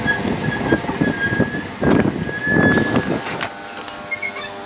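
London Overground electric multiple unit rolling along the platform, its wheels squealing with a steady high tone over a rumbling clatter of wheels on rails. About three and a half seconds in, the sound drops to a quieter steady hum.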